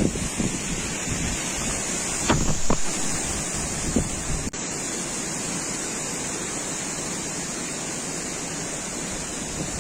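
Wind blowing hard and buffeting the microphone, a steady rushing noise with gusty low rumble. A few sharp knocks come between about two and four seconds in, and the sound briefly cuts out at about four and a half seconds.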